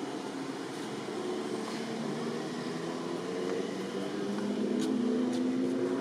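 Motor vehicle engine running, its pitch slowly rising and growing louder over the second half.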